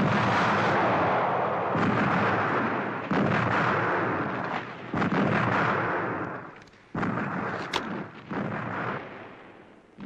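A series of heavy gunfire blasts, about five, each starting suddenly and rumbling away over a second or more, the later ones fading lower near the end.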